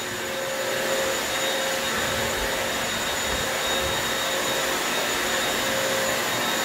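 Corded upright wet-dry floor cleaner (vacuum mop) running steadily, a continuous motor hum with a steady high whine.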